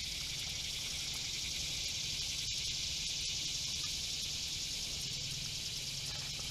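A steady, high-pitched chorus of insects buzzing, with a couple of faint clicks around the middle.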